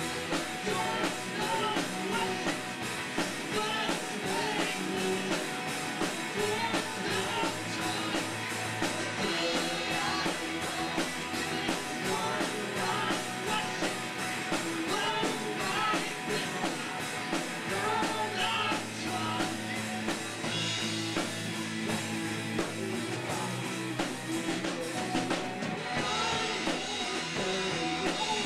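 Pop-punk band playing live: electric guitars and drum kit with a sung lead vocal.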